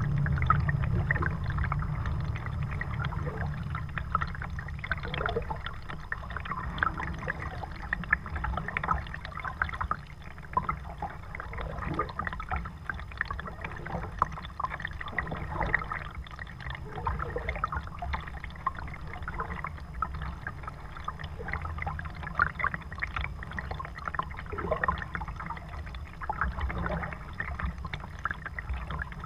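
Water splashing, dripping and trickling with the strokes of a kayak paddle, and water lapping at the hull of a Perception Pescador 12 kayak, over a low rumble that is loudest at the start.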